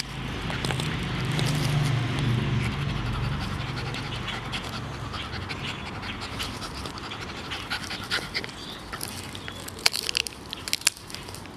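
Miniature pinscher gnawing a wooden stick: repeated sharp crunching clicks of teeth splintering the wood, with the dog panting. A low rumbling hum runs through the first few seconds and then fades.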